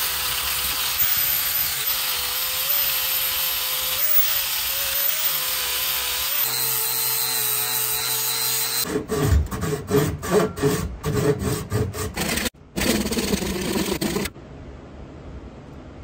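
Angle grinder with a flap disc grinding a cast scrap-metal axe head held in a vise: a steady high motor whine over a grinding hiss, the pitch dipping and wavering as the disc bites. From about nine seconds in the grinding comes in loud uneven pulses, then near the end it cuts to a much quieter faint hiss.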